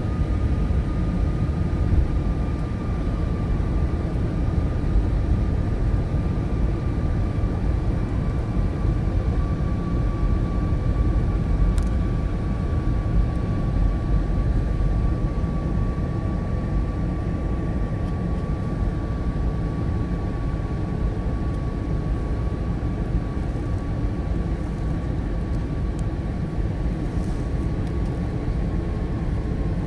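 Cabin noise of an Airbus A321 in flight at low altitude: a steady roar of engines and airflow, with one thin whine that slowly drops a little in pitch.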